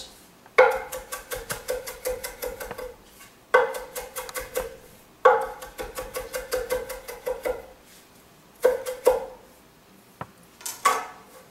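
Chef's knife chopping fresh cilantro on an end-grain wooden cutting board: quick runs of knocks, several strokes a second, in about five bursts with short pauses between them.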